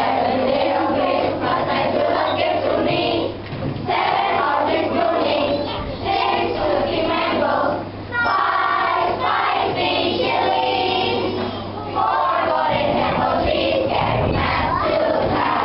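A group of school children singing a Christmas song together in unison, in phrases separated by brief pauses.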